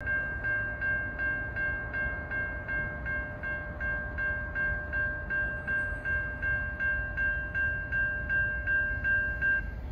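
Railroad grade-crossing bell ringing about three strikes a second, stopping near the end, over the low rumble of a short Norfolk Southern train passing over the crossing.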